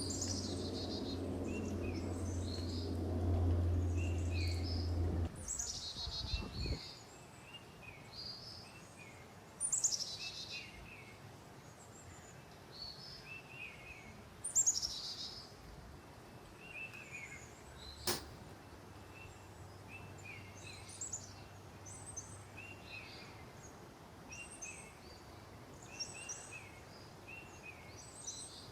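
Small birds singing: many short repeated chirps and trills, with a few louder falling notes. A low steady rumble under the first five seconds stops, and there is one sharp click about eighteen seconds in.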